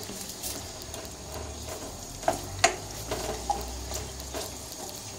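Sliced carrots sizzling in olive oil in a stainless steel pot while being stirred with a wooden spoon, a steady hiss with a few sharp knocks of the spoon against the pot, the loudest two close together near the middle.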